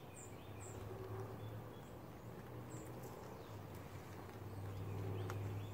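Small birds giving a few short, high chirps in the woods, over a low steady hum that grows louder near the end.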